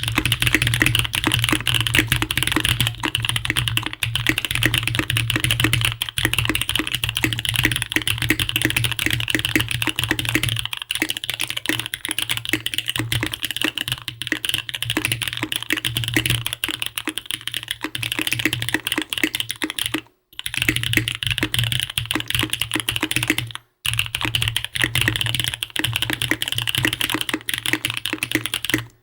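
Fast, continuous typing on a Bias R1 custom mechanical keyboard: frankenswitches with Cherry housings and Husky stems on a POM plate, GMK 9009 keycaps, a layer of shelf liner in the case. The keystrokes clack in a way that sounds like long-pole switches. The typing cuts out completely twice, briefly, about 20 and 24 seconds in.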